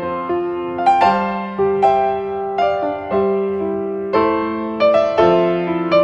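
Background piano music: single notes and chords struck about every half second to a second, each left to ring and fade.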